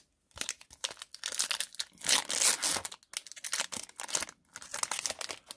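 Foil wrapper of a hockey card pack being torn open and crinkled by hand, in uneven crackling spurts with short pauses.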